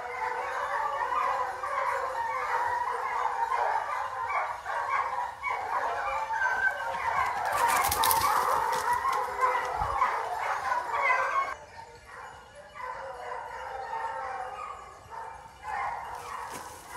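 A pack of hunting hounds baying on a scent trail, many voices overlapping. A brief rustle near the microphone comes about halfway through, and soon after the baying turns suddenly fainter.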